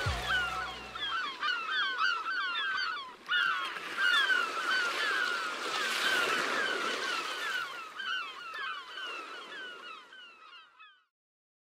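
A flock of birds calling: many short, downward-sliding calls overlapping one another, fading away near the end. The last of the music stops about a second in.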